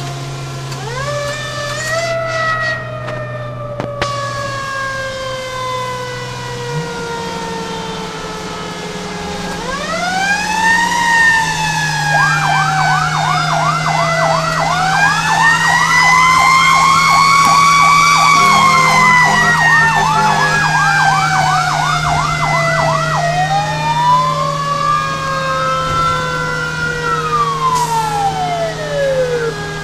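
Fire engine sirens sounding while responding. A siren winds up and then slowly coasts down in pitch, again and again. Through the middle a faster siren sweeps up and down several times a second over it, and near the end the pitch climbs and then drops quickly. Beneath it all is the truck's steady engine drone.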